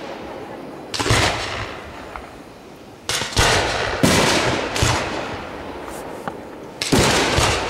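Aerial firework shells bursting: a boom about a second in, a quick cluster of booms between about three and five seconds, and another near the end. Each boom trails off into a long rolling echo.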